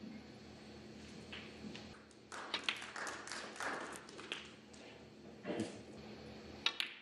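Snooker balls clicking: the cue tip striking the cue ball and balls colliding on the table, as sharp single and double clicks about two and a half seconds in, again at about five and a half seconds, and twice close together near the end.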